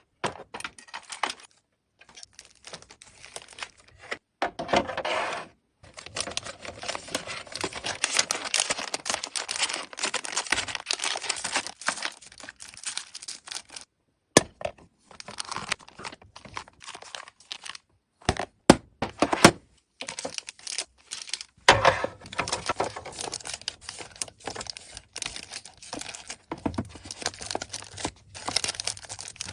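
Paper or plastic packaging crinkling and tearing under the hands, with scattered small clicks and taps, in short stretches that stop abruptly several times.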